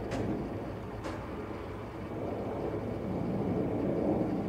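Jet engines of a twin-engine widebody airliner passing overhead on approach: a steady low rumble that swells toward the end. Two faint ticks about a second apart come near the start.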